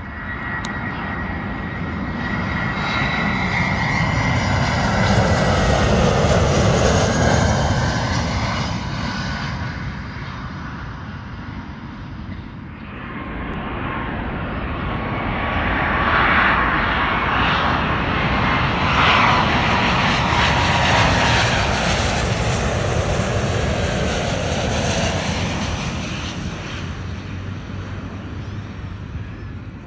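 Jet airliners on their landing approach passing low overhead: two long swells of engine noise, each rising and fading over several seconds, with a high whine drifting slightly down in pitch.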